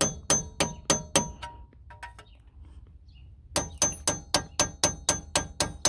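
Hammer striking the back of a screwdriver wedged behind a rusted wheel hub, quick ringing metallic clangs about four a second in two runs with a pause of about two seconds between them. The blows drive the screwdriver in to widen the gap and work the seized hub loose.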